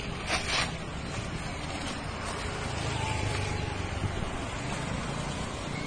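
Paper rustling and crumpling in two short bursts near the start, over a steady low rumble of road traffic that swells around the middle.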